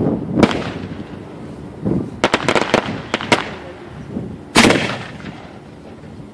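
Aerial fireworks shells from steel mortars going off at close range: a sharp bang about half a second in, a quick run of sharp cracks between about two and three and a half seconds, and the loudest boom at about four and a half seconds, each trailing off afterward.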